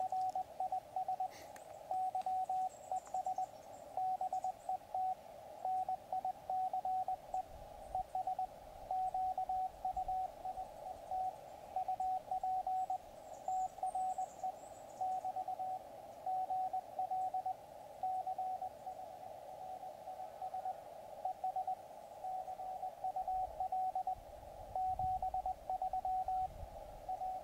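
Morse code (CW) received on a Yaesu FT-817 amateur radio transceiver: a single mid-pitched beep keyed on and off in dots and dashes over a narrow band of receiver hiss. The other station is signing off the contact ('R SNDS GUD CHRIS ... GL CHRIS ES CUL 73').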